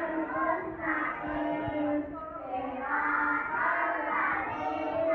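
A group of young children singing together in unison, holding notes in short phrases.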